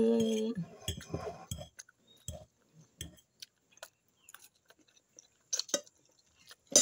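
A short hum of a woman's voice at the start, then a fork tapping and scraping on a plate with chewing as she eats spaghetti. A louder clink comes near the end.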